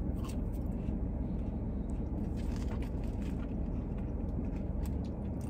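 Steady low hum of a car's engine running while parked, heard from inside the cabin, with faint crunching of crispy French fries being chewed.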